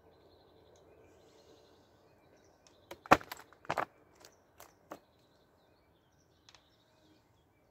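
Sharp clicks and knocks from an angler handling his rod and tackle: about half a dozen within two seconds, starting about three seconds in, the first the loudest, then a couple of faint ticks.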